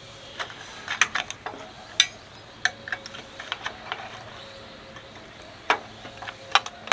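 Light clicks and taps of a small stainless-steel tin box being handled as cotton balls are pushed into it, with one sharp metallic clink about two seconds in.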